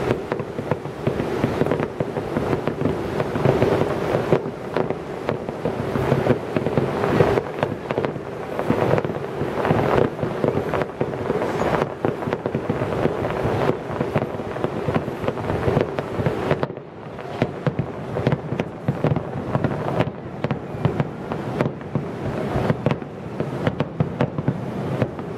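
Fireworks display: a rapid, continuous barrage of aerial shell bursts and crackling, with a brief lull about two-thirds of the way through.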